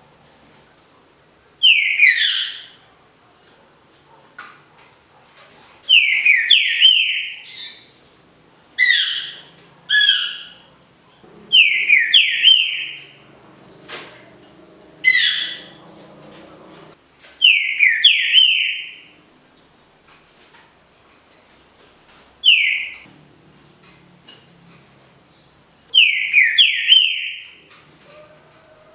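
Green-winged saltator (trinca-ferro) singing the 'canto liso' (smooth, Paraná-style) song: about nine short, loud phrases of quick falling whistled notes, repeated every few seconds.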